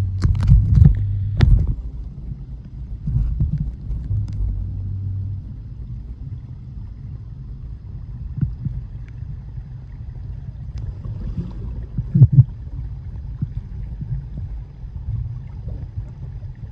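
Low, steady underwater rumble of a waterfall pouring into its plunge pool, with a few sharp clicks and knocks in the first couple of seconds and again near twelve seconds in.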